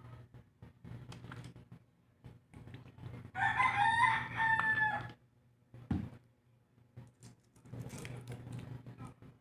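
A rooster crows once, about three seconds in, for nearly two seconds, the loudest sound here. Around it are small clicks and taps at the table, and a short dull thump about a second after the crow.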